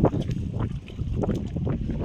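Water splashing and sloshing in irregular bursts, with wind buffeting the microphone.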